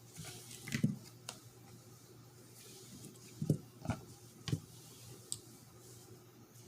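A handful of light, sharp knocks and clicks, a few seconds apart, from parts and tools being handled during disassembly of a manual shifter assembly.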